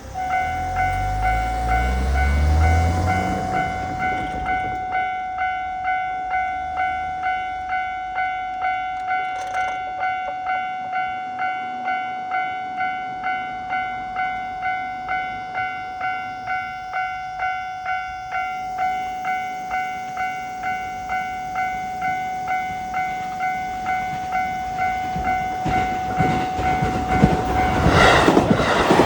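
Japanese level-crossing warning bell ringing its repeated 'kan-kan', about one and a half strikes a second, over a steady tone. Near the end the rumble of an approaching E653-series electric train rises and takes over.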